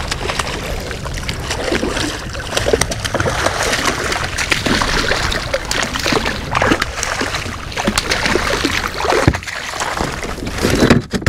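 A hooked white seabass, a small one, thrashing and splashing at the water's surface as it is reeled in, with repeated sharp splashes; near the end it is swung up out of the water.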